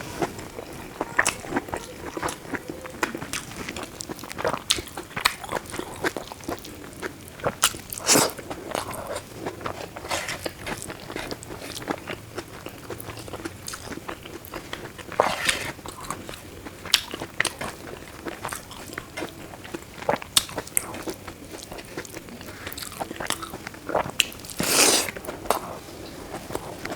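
A person eating close to the microphone: steady chewing with many small irregular mouth clicks and bites, and louder crunches about 8, 15 and 25 seconds in.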